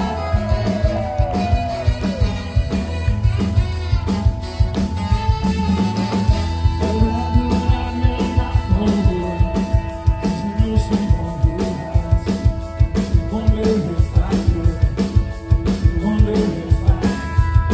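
Live band playing a rock-ska song: a drum kit keeps a steady beat under electric guitars and keyboard, with singing.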